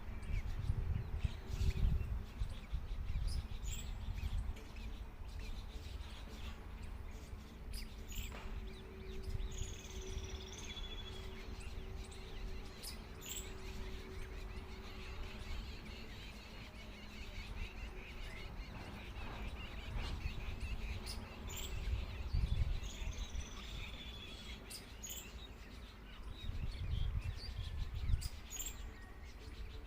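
Birds chirping now and then, with short, high calls scattered through, over a steady low rumble.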